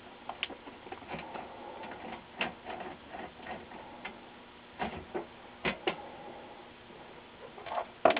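Scattered light clicks and small metallic taps of a screwdriver backing a small screw out of an LCD panel's metal frame, irregular and a second or so apart, a little busier near the end.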